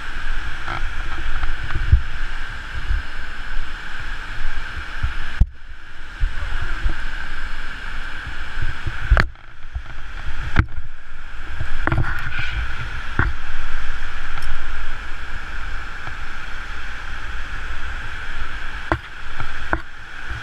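Wind buffeting the microphone in irregular low gusts over a steady rushing noise as the jumper dangles on the bungee cord, with a few short sharp clicks.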